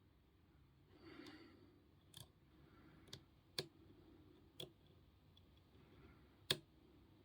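Several separate light clicks from a padlock and lock picks being handled, with a faint rustle about a second in; the loudest click comes near the end.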